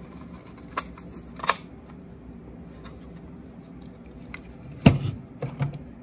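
A few light plastic clicks and one louder knock about five seconds in, from handling a Cerberus Pyrotronics DI-3 smoke detector as it is fitted back together.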